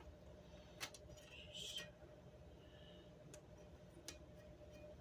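Near silence: faint steady room hum with a few soft clicks and a brief rustle of handling.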